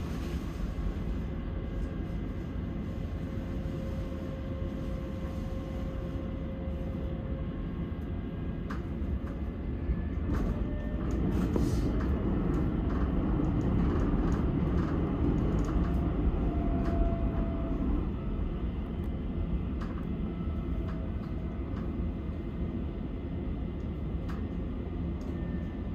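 Stockholm metro train running on its tracks, heard from inside the carriage: a steady low rumble of wheels and motors that swells a little midway, with a few brief faint whining tones.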